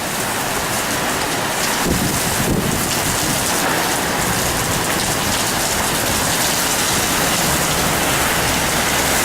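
Torrential thunderstorm rain pouring down in a steady, dense hiss, with a low rumble underneath from about two seconds in.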